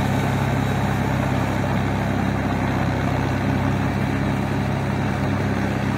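Tracked farm tractor's engine running steadily while it rotary-tills a flooded rice paddy, a constant low hum with no change in pitch.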